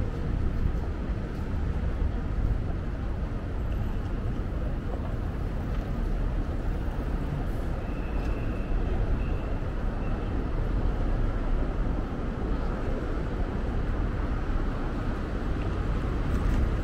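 Steady city street traffic noise from passing vehicles, mostly low-pitched.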